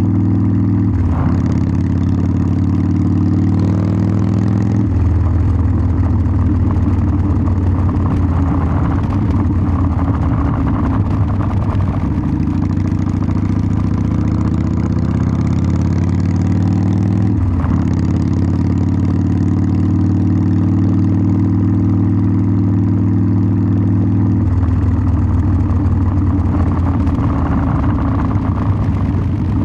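Harley-Davidson Sportster 1200's air-cooled V-twin exhaust while riding, holding a steady note for long stretches. The note breaks briefly about a second in and again around seventeen seconds in, and changes pitch near five and twenty-four seconds in.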